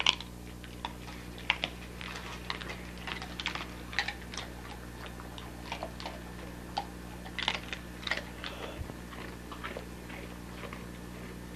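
Dogs chewing bones: irregular crunches and clicks, several close together around the middle, over a steady low hum.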